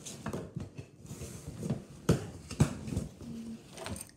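Cardboard shipping box being handled and its flaps pulled open: irregular knocks, taps and scrapes of cardboard, the two loudest knocks a little after two seconds in.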